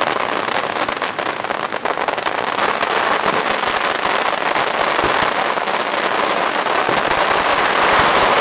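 Fireworks crackling continuously, with many small sharp cracks packed densely together, growing slightly louder near the end.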